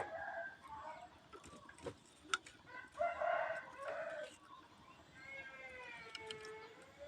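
A rooster crowing, ending in one long drawn-out crow near the end. There are a few sharp clicks about two seconds in.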